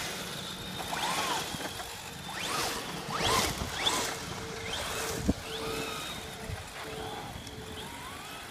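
Electric motors of radio-controlled trucks whining, the pitch sweeping up and down again and again as the throttle is worked, over a hiss of tyres on dirt. A single sharp knock about five seconds in.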